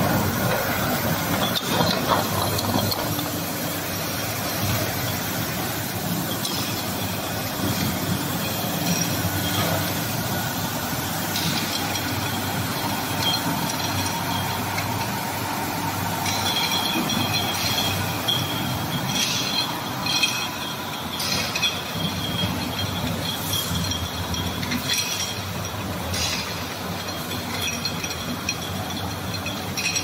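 Automatic bottle washing and label-removing machine running with a steady mechanical clatter. Bottles clink and ring against each other on its conveyor at irregular moments, more often in the second half.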